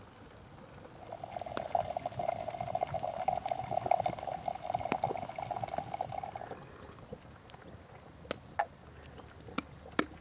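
Hot water running from a samovar's tap into a glass teapot, a steady splashing pour that stops about six and a half seconds in. A few short, sharp clicks follow.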